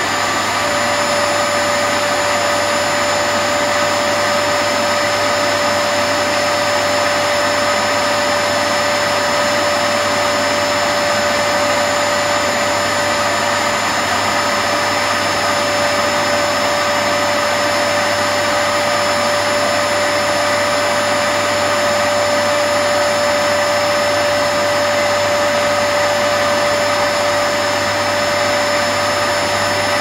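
Vax Platinum Power Max carpet washer's suction motor running steadily: a constant rushing hiss with a steady whine.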